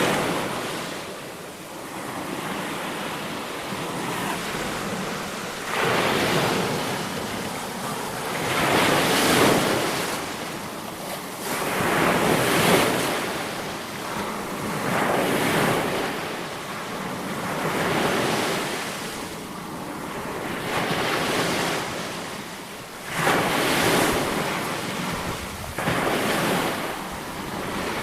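Sea waves breaking and washing in, one surge every two to three seconds, each swelling up and hissing away, with a steady rush between them.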